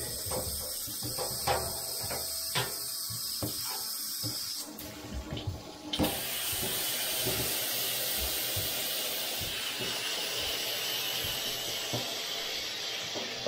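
Water running from a hand-held shower head into a bathtub, a steady hiss with a few knocks at first. About six seconds in it gets fuller and louder, and by the end the spray is rinsing plastic car-console panels.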